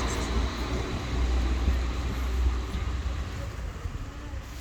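Street traffic noise: a low rumble of a passing vehicle that fades over the last couple of seconds.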